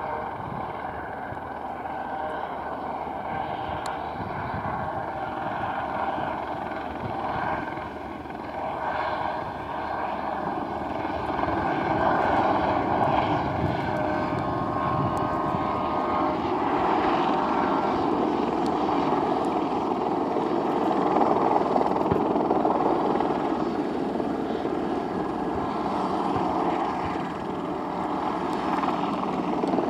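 Airbus EC120B helicopter flying a low display, its single turboshaft engine and rotors running steadily, growing louder about twelve seconds in.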